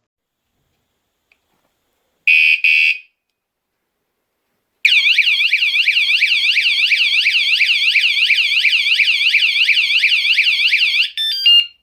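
Wsdcam 113 dB wireless bike alarm: two short loud beeps, then a couple of seconds later a loud, rapidly warbling siren for about six seconds. It ends with a few short stepped tones and cuts off.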